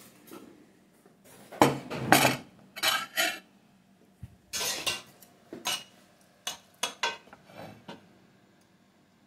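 Dishes and metal cutlery clinking and clattering in a string of sharp knocks, the loudest pair about one and a half to two seconds in, then lighter clinks until they stop near the end.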